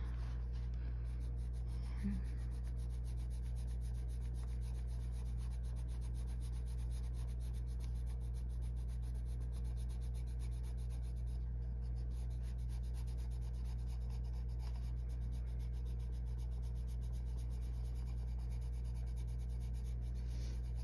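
Colored pencil rubbing lightly on paper in soft, continuous shading strokes, over a steady low hum.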